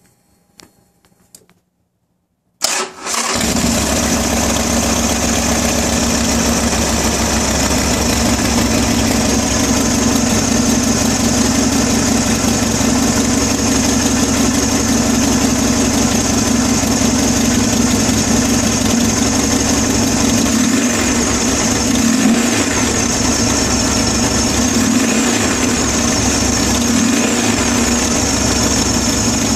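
Harley-Davidson XR1200's air-cooled V-twin on its stock exhaust pipes, heat shields removed and pipes wrapped, started about three seconds in and then idling steadily. This is the stock sound that the owner says doesn't really sound all that great.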